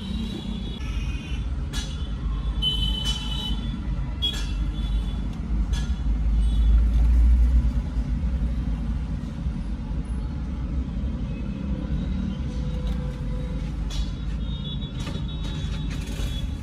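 A car engine running with a steady low rumble, swelling louder for about two seconds around the middle, with a few scattered clicks and knocks over it.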